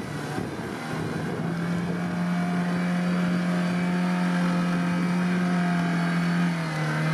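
Lada Niva's engine revved hard and held at high, steady revs as the 4x4 pulls through boggy marsh water and mud; near the end the revs start to drop.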